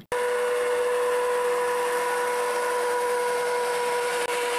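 Steady motor drone with one held mid-pitched whine over a hiss, cutting in abruptly and staying even throughout.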